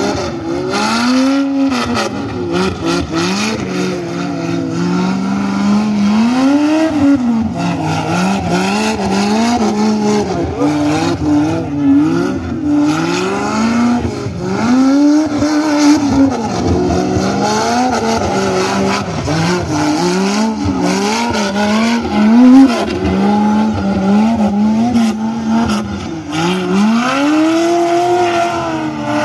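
Off-road buggy engine revving hard and easing off over and over, its pitch climbing and falling every second or two as it works over rough dirt.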